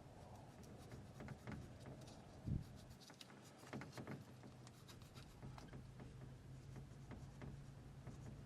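Faint handling sounds of marking a solar cable: tape being wrapped on it and a marker writing a plus, with small rubs and clicks, one soft knock about two and a half seconds in, over a low steady hum.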